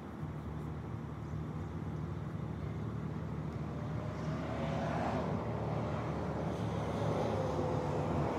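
Traffic passing on the road: a vehicle's engine and tyre noise swells about five seconds in, then a van goes by near the end, each with a slightly falling pitch as it passes. A steady low motor hum runs underneath.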